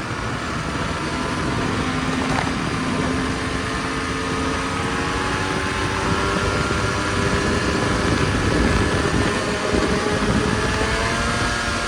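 Snowmobile engine running under way, its pitch climbing slowly and steadily, over a steady rushing noise.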